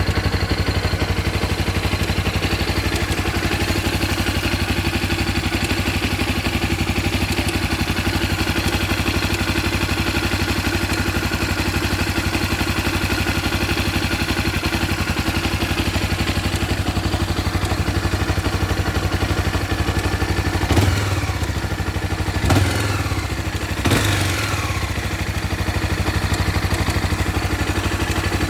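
Honda CB 300R's single-cylinder engine idling steadily with a clattering from the cam timing chain, which the owner takes for timing-chain noise. About three quarters of the way through the throttle is blipped three times in quick succession, the revs rising and falling each time.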